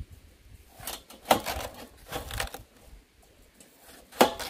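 Several short crunching bites into a wedge of fresh watermelon. The loudest bites come a little after one second in and again near the end.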